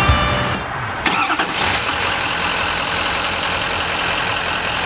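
Duramax 6.6L turbo diesel V8 starting about a second in, with a brief rising whine, then settling into a steady idle.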